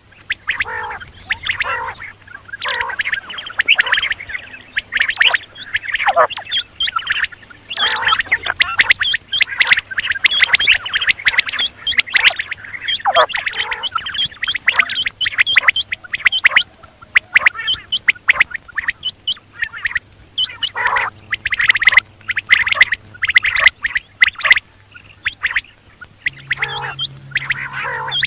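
Quail calling in quick, overlapping runs of short, sharp notes, with an occasional falling note, as from several birds at once.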